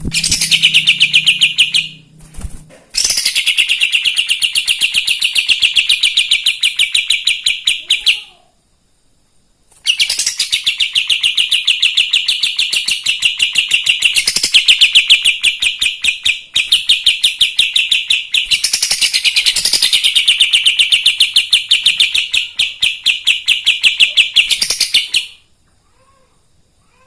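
Kapas tembak songbird singing in fast, loud trills of rapidly repeated high notes. It sings in three bouts, the last one long, with short pauses between them.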